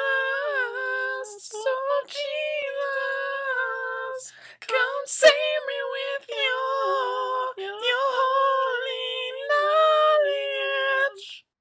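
A high voice singing unaccompanied, holding long notes that slide between pitches in short phrases with brief gaps between them.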